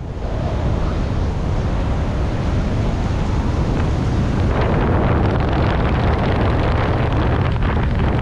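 Wind buffeting the microphone of a tandem skydiver's camera during the descent under an open parachute: a steady, loud rush with a deep rumble, building up over the first second.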